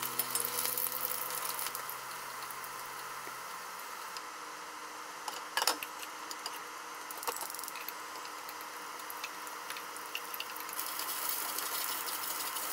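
Oil sizzling in a frying pan, thinning out in the middle and growing again near the end as bamboo-shoot pieces are stir-fried, with a sharp metallic clank about halfway through.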